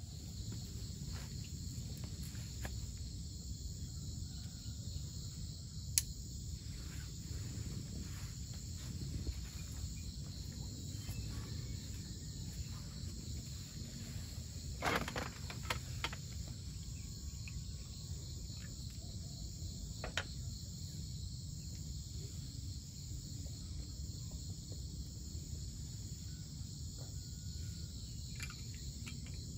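Insects trilling in a steady high-pitched chorus over a low rumble of outdoor ambience, with a few sharp clicks, one about six seconds in and a small cluster around fifteen seconds.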